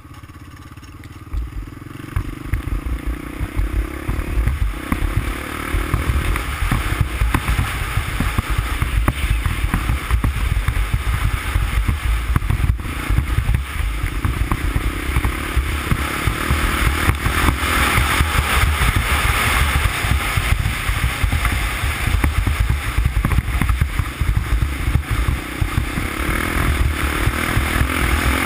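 Honda ATC350X ATV's single-cylinder four-stroke engine running under way, getting louder over the first few seconds as it picks up speed and then pulling steadily, with wind buffeting the camera microphone.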